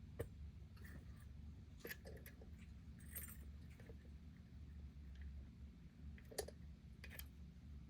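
Faint, scattered small metallic clicks and a brief light jingle of dimple picking tools and a tension wrench working in a dimple padlock, over a low steady hum.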